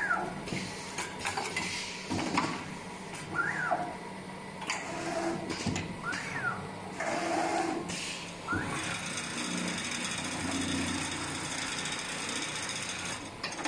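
Automatic pocket-setting machine at work: its pneumatic folders and clamps clack with short bursts of air every couple of seconds as the shirt pocket is folded and clamped onto the template. From about nine seconds in, the industrial pattern sewing machine runs steadily while it stitches the pocket's 6 mm edge seam, then stops shortly before the end.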